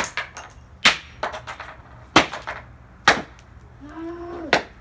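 Hammer blows smashing the plastic pieces of a Dreamsky DS206 alarm clock radio on plywood: about five sharp hits roughly a second apart, with lighter knocks between. A brief voice sounds just before the last blow.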